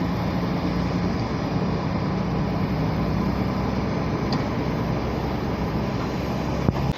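Steady drone of jet aircraft engines, a low hum under an even rush, with a short click near the end.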